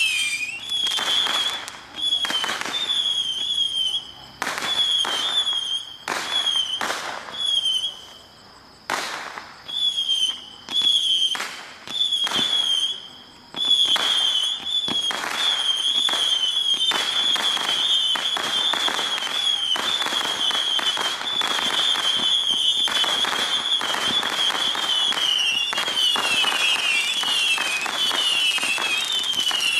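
200-shot Saturn missile battery firing: a stream of small whistling rockets, each a short high whistle with a sharp pop. For the first half they go off in quick bursts with brief gaps. From about halfway they fire in a continuous rapid barrage of overlapping whistles and cracks.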